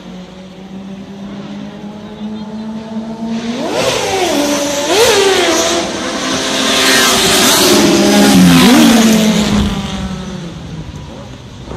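Motorcycle engines revving hard and accelerating through the gears as they pass, the pitch climbing and dropping with each shift. The sound builds to its loudest about two thirds in, then fades away.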